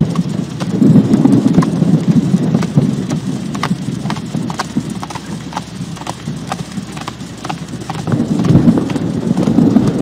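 AI-generated (EzAudio text-to-audio) horse hooves clip-clopping at a steady walk, about two clops a second, over a low rumbling wash that swells near the start and again near the end. The generator was asked for the horse in windy rain with distant thunder.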